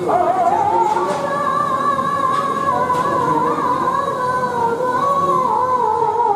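A song with a singing voice, rising over the first second and then holding one long, wavering high note until just before the end.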